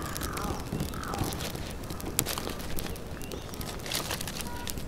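Dry twigs and pine cones crackling and snapping as a small kindling fire is tended, with many sharp irregular clicks. Crows caw in the first second or so.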